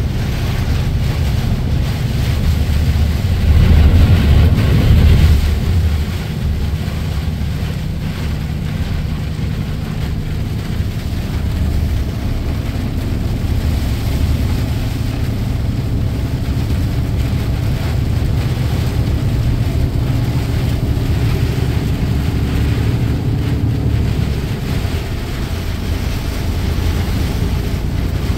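Truck cab interior while driving on a wet road in heavy rain: a steady low engine and road drone with the hiss of tyres and rain on the windscreen. About four seconds in, a louder swoosh of spray as oncoming traffic passes.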